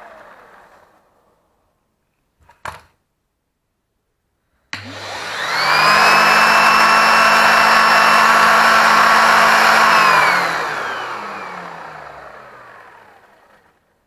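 Numatic Henry Xtra HVX200 vacuum cleaner switched on with a click: its motor spins up within a second to a steady high whine with suction rush. About four seconds later it is switched off and the whine falls in pitch as the motor runs down.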